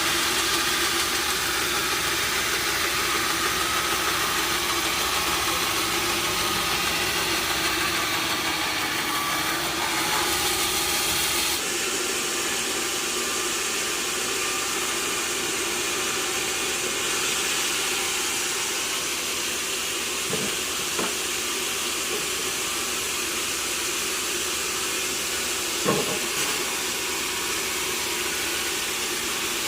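Sawmill machinery running steadily, a hissing drone with a steady hum. The deep rumble drops away about a third of the way in, and a few short knocks come in the second half, one louder than the rest.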